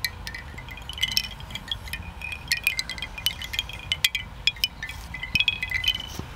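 Bamboo wind chime knocked by hand, its hollow tubes clacking together in many quick, uneven knocks with short ringing tones, growing busier about a second in.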